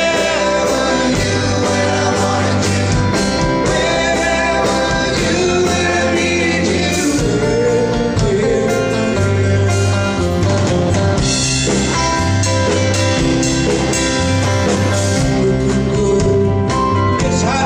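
A live band playing with singing, over a steady bass line and drums.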